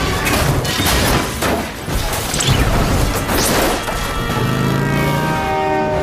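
Film action soundtrack: a rapid run of crashes, booms and rushing whooshes mixed over music. About four seconds in, the effects thin out and held orchestral chords take over.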